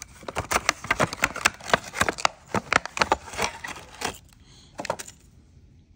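Crinkling and clicking of clear plastic packaging being handled and opened, with a reel handle drawn out of it. Quick crackles come thick for about three seconds, then a few scattered ones, and stop about five seconds in.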